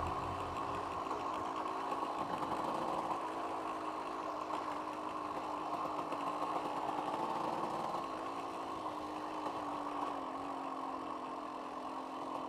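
1990s KTM two-stroke dirt bike engine running at fairly steady, low revs, its pitch wavering a little as the throttle changes while riding.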